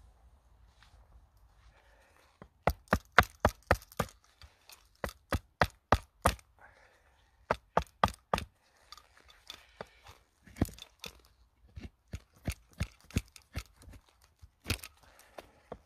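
Hultafors hatchet chopping into the end of a wooden stick held upright on a stump. The strikes are sharp and come in quick runs of about four a second with short pauses between, starting about two and a half seconds in.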